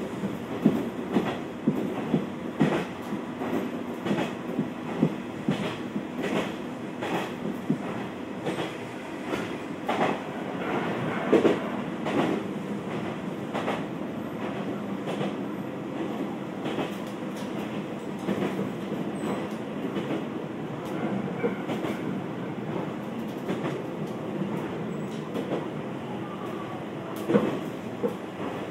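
Running sound inside a KiHa 2200-series diesel railcar on the Kanto Railway Joso Line: a steady diesel and running-gear hum under the clickety-clack of wheels over rail joints. The clicks come thick and fast in the first half and thin out later, with a few louder knocks.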